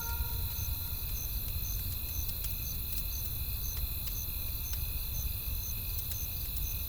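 Night ambience of a crackling campfire, with scattered sharp pops over a low rumble, while a cricket chirps steadily about twice a second.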